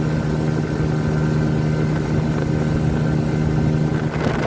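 Tiller-steered outboard motor running steadily as an inflatable boat moves under way, one even engine tone over a rush of wind and water.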